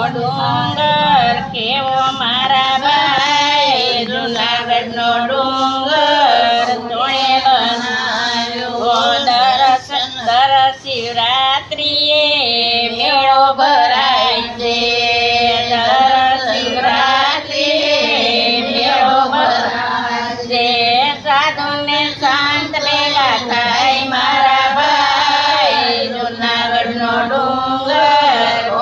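Elderly women singing a traditional Gujarati devotional folk song (satsang geet), a continuous sung melody.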